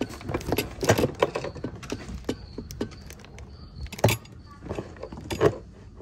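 Footsteps on a concrete floor with scattered knocks and light metallic rattles, irregular rather than steady, the sharpest knocks about a second in, about four seconds in and near the end.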